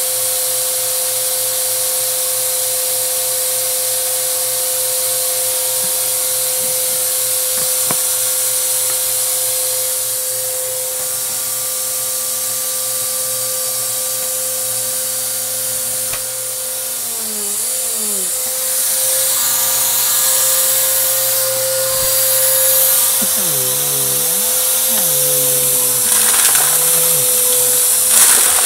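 Bissell AeroSwift vacuum cleaner running with a steady motor whine over rushing air. The pitch wobbles briefly twice, about two-thirds of the way in and again shortly after. A crackly crunching of debris being sucked up rises near the end.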